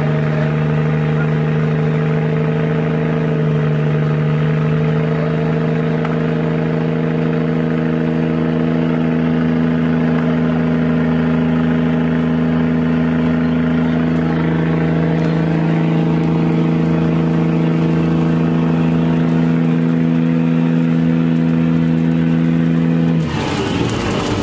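Trawler's engine running with a steady, unchanging drone. About 23 seconds in it cuts off suddenly, giving way to clattering knocks.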